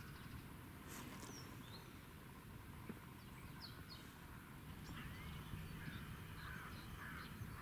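Faint birdsong: scattered short chirps and whistles, with a quick run of calls from about five seconds in, over a steady low rumble.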